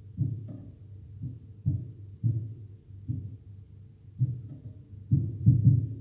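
Canary pecking seed from a plastic seed cup: irregular, muffled dull taps, about two a second, with a quick cluster of louder ones near the end.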